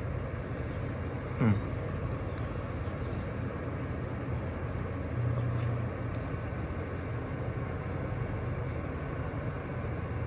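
A steady low rumble throughout, with a short squeak falling sharply in pitch about a second and a half in, and a brief very high whistle a second later.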